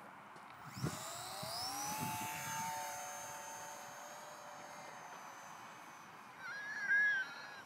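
Electric motor and propeller of a mini Messerschmitt RC park flyer spinning up about a second in with a rising whine as it takes off, then holding a steady pitch and fading as the plane climbs away. Near the end, a brief wavering call, louder than the motor.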